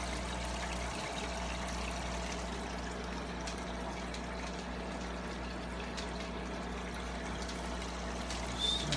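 Water pouring steadily into a 55-gallon aquarium as it is refilled, over a steady low hum.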